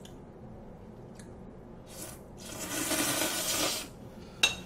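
A person slurping cold ramen noodles: two short sucking sounds, then one long noisy slurp about two and a half seconds in that lasts over a second. A sharp click comes near the end.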